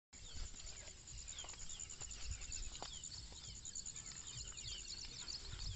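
Birds chirping in short falling calls over a fast, even, high-pitched ticking, with a low rumble underneath.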